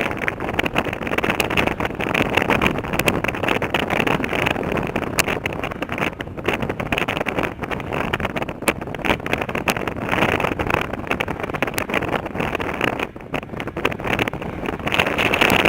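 Airboat running steadily, its engine and propeller noise mixed with wind buffeting and crackling on the microphone.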